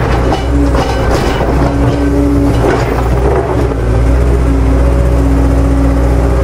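Radio-controlled excavator at work: a steady low engine-like drone under electric motor whines that start and stop as the arm moves, with a few knocks in the first second or so as the rock block shifts.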